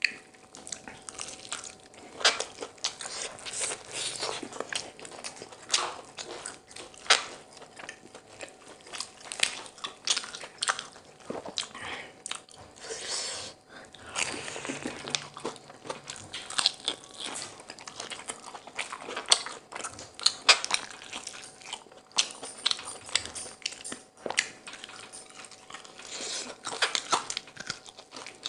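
Close-miked eating of crispy fried chicken: irregular sharp crunches as the fried coating is bitten, with chewing and the meat being pulled apart by hand.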